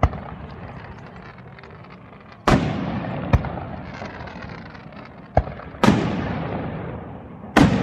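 Aerial firework shells bursting. There is a small pop at the start, then three loud booms, about 2.5 s in, about 6 s in and near the end, each trailing off in a long rumbling echo, with two smaller, sharper cracks between them.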